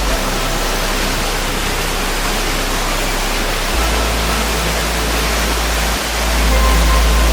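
Nandroya Falls' waterfall: a steady, really loud rush of falling water. Low bass notes of background music sit underneath it.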